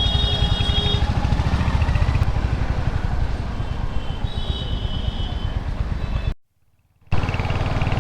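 Riding a motorcycle through city traffic: wind rushing over the microphone and the engine give a steady low rumble. Short vehicle horns sound just after the start and again around four seconds in. The sound cuts out for under a second near the end.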